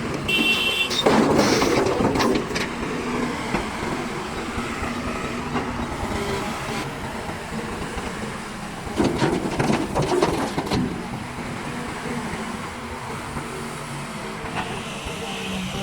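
JCB backhoe loader's diesel engine running steadily at a road works, with two louder stretches of a second or two, about a second in and about nine seconds in, as the machine works.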